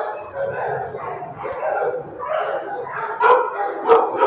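Several shelter dogs barking over one another without a break, with louder barks about three and four seconds in.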